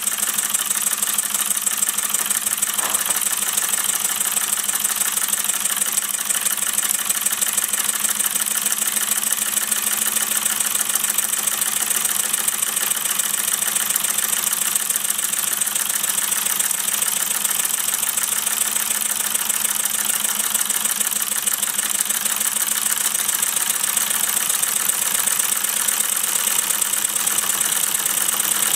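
Gas-fired Mamod SP7 twin sleeve-valve model steam engine running steadily, with a fast, even beat over a constant hiss.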